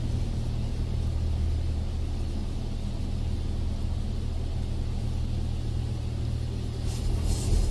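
Heard from inside a car in a Water Wizard touchless car wash: a steady low rumble. About seven seconds in, a high-pressure water spray starts hissing against the car and grows louder.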